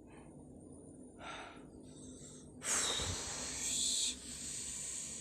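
An owl's harsh, hissing screech, about a second and a half long, preceded about a second in by a shorter, fainter hiss.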